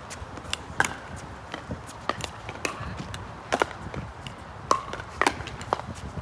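Pickleball paddles striking a plastic ball, with the ball bouncing on the court: about a dozen sharp pocks at uneven intervals during play.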